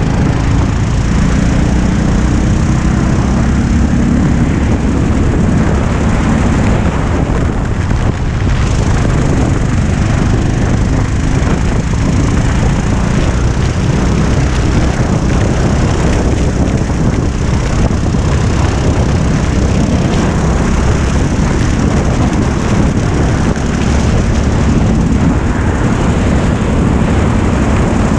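Go-kart engine running at racing speed, heard from the driver's seat, with steady wind noise buffeting the microphone.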